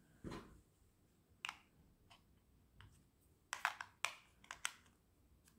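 Small plastic clicks and knocks from a dash cam and its mount being handled. There is a soft rustle at the start and a single click about a second and a half in. Between about three and a half and five seconds comes a quick run of sharper clicks as the mount is pressed onto the back of the camera.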